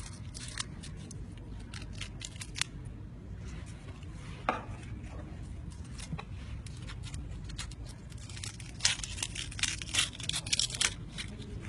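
Kitchen knife cutting and prising open red onions, their dry papery skins crackling and tearing in short, crisp snaps, with a quick flurry of them near the end.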